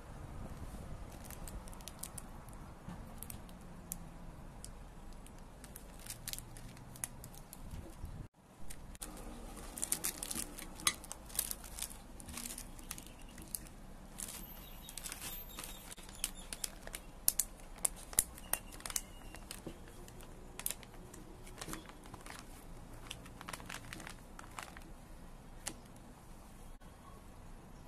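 Clear plastic wrappers of individually wrapped sweets and their plastic bag crinkling and crackling as they are handled, the crackles thickest in the middle stretch.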